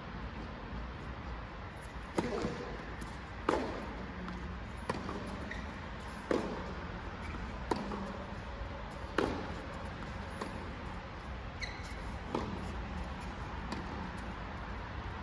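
Tennis rally: the ball struck by rackets in turn, a sharp hit about every one and a half seconds, with a short ring after each.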